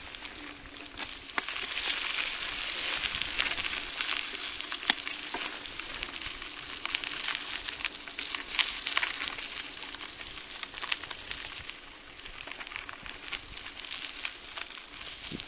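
Bicycle tyres rolling over a loose gravel dirt road: a continuous crunching hiss with many small clicks and pops of stones under the wheels.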